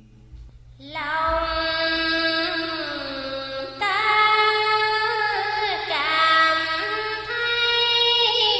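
A woman chanting Vietnamese scripture verse in a sung, drawn-out melody. Her voice comes in about a second in after a short pause, holding long notes that bend and slide in pitch.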